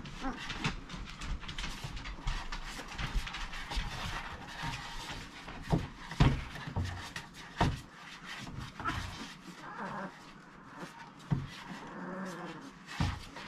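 Newborn basset hound puppy giving brief high squeals and whimpers as it squirms. Its paws and the handler's hands rub and knock on a plastic pet scale, with the loudest knocks about six and seven and a half seconds in.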